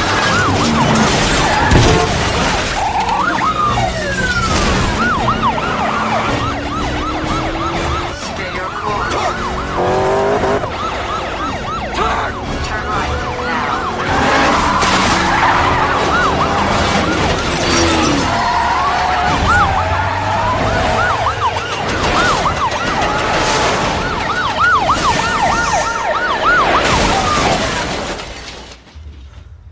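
Film car-chase sound mix: several police sirens yelping and wailing over car engines, with sharp impacts and a music score underneath. The whole mix drops away suddenly near the end.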